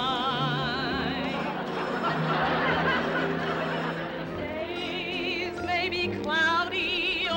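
A woman singing in a showy operatic style with heavy vibrato over an orchestra: a long held note at the start, then a busier stretch, then quick, wobbling high notes near the end.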